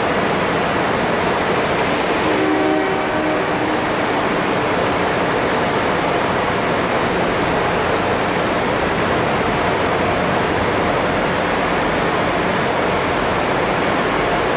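Steady loud rushing noise filling a large rail-maintenance shed, with a few faint brief tones about two to three seconds in.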